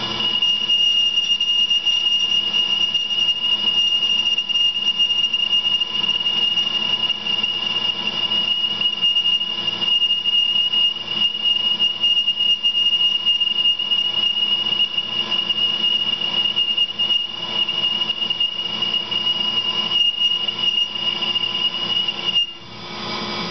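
Steel boring bar with an insert chattering as it bores 303 stainless steel stock spinning in a Tormach PCNC 1100 mill's spindle: one steady high-pitched squeal over the machining and coolant noise, stopping abruptly near the end as the cut ends. This chatter is what the machinist puts down to using plain steel bore bars rather than carbide or heavy-metal ones.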